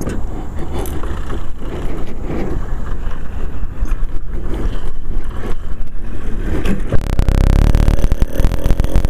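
Motorized bicycle rolling off under pedal power, with wind rumble and rattles, while its 80cc Zeda two-stroke engine is bump-started. About seven seconds in the engine catches and runs with a fast, even beat. This is its first start on a new high-performance carburettor that has not yet been rejetted.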